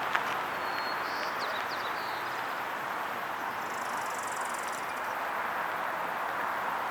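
Steady vehicle road noise, a constant rushing hiss, with a few faint high chirps about a second in.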